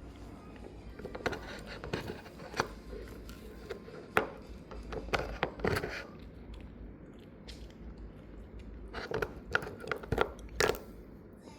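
Shiba Inu gnawing on a bone: irregular crunching and cracking bites in clusters, with a quieter stretch in the middle, over a steady low hum.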